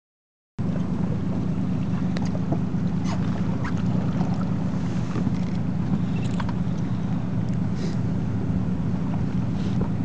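Boat engine running steadily with a low hum, starting about half a second in, with scattered light clicks and ticks over it.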